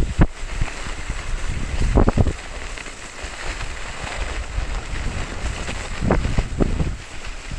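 Wind buffeting the microphone of a camera worn by a downhill skier, over the steady hiss of skis sliding on packed snow. A few short low thumps come through, at the start, about two seconds in, and around six seconds.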